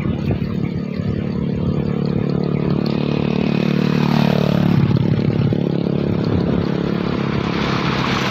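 A motor vehicle engine running steadily with wind noise on the microphone. About four seconds in, a tone briefly dips in pitch and rises back.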